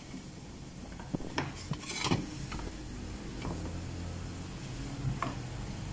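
A large pot of water at a rolling boil on a gas burner, bubbling steadily: the water brought to the boil for blanching cabbage leaves. A few light knocks and clinks of kitchen utensils come in the first half, the loudest about two seconds in.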